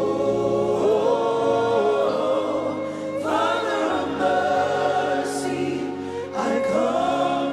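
Gospel worship song sung by a choir and congregation, holding long drawn-out notes on an "oh", with the band playing underneath.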